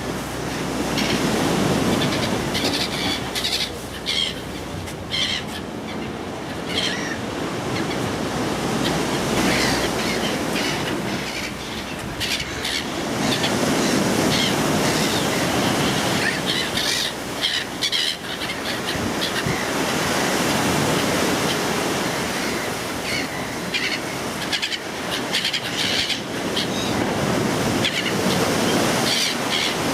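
Sea surf on the shore, rising and falling in slow swells every several seconds, with gulls calling in short clusters over it.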